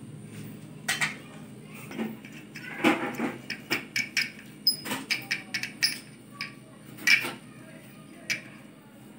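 Stainless steel mini idli plates clinking and knocking against each other and the counter as they are handled and brushed with ghee: a string of irregular sharp metallic clicks and knocks.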